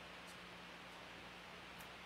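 Near silence: steady background hiss with a faint low hum, and a couple of very faint ticks.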